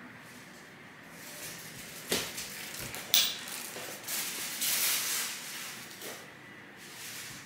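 Handling noises from piping bags and decorating tools: a tap about two seconds in, a sharp click a second later, then a few seconds of rustling.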